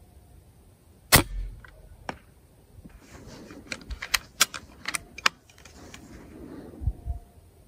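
A moderated PCP air rifle fires a single shot: one sharp, loud crack about a second in, with a short low rumble after it. From about three seconds in comes a run of light metallic clicks and rattles, as from handling the rifle's action.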